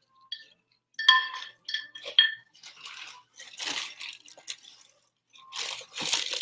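Three or four short ringing clinks of a ceramic Scentsy wax warmer being packed back into its box, about a second in, then rustling and scraping of the box and packing, louder near the end.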